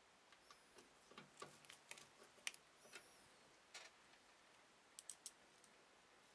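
Faint scattered clicks and light metallic taps of a screwdriver and screws fastening drives into a computer case's mounting bays, a cluster in the first few seconds and three quick clicks near the end.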